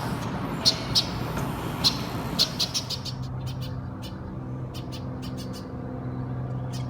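Brewer's blackbirds giving short, sharp calls, several in quick succession in the first few seconds, then scattered short clicks, as the birds demand food. A steady low hum sets in about three seconds in.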